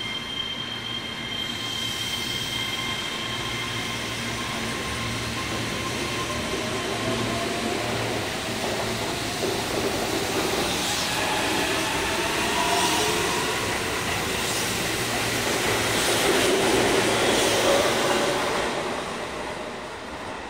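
Keihan 10000 series seven-car electric train pulling out of the station and accelerating past: the traction motors' whine climbs in pitch while wheel and rail noise builds, with brief high wheel squeals. It is loudest about 17 seconds in as the last cars go by, then fades away.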